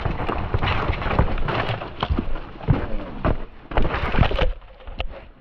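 Vitus Sommet VR enduro mountain bike rattling down a rocky trail, then a crash: a run of heavy knocks as bike and rider tumble over wet rocks, stopping about four and a half seconds in.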